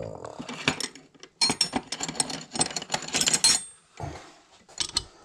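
Metal ring spanners clinking and clattering as they are rummaged for and picked up: a quick run of sharp metallic clicks over about two seconds, then a few lighter knocks near the end.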